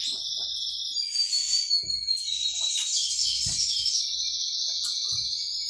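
A songbird singing without pause in high trills and whistles, some notes gliding down in pitch. A few soft knocks come from a mug and dishes on the table.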